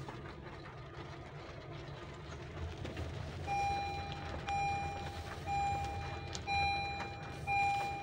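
A car's engine runs with a steady low hum. About halfway in, an electronic vehicle warning beeper starts sounding long, evenly spaced beeps about once a second, louder than the engine.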